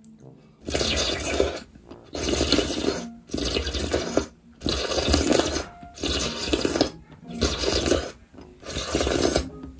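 A person slurping watery rice porridge off a wooden spoon, about eight slurps in a row, each under a second long with short pauses between. The extra water added to the porridge is what makes it slurpy.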